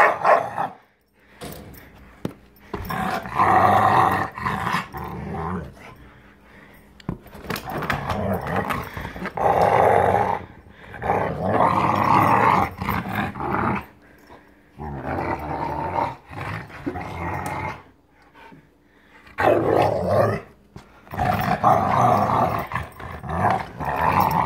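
A Rottweiler growling as she bites and mouths a rubber basketball, in long bouts of a few seconds each with short pauses between.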